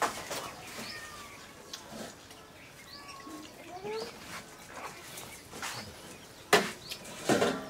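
Birds chirping and a cat meowing a few seconds in, with two sharp knocks near the end.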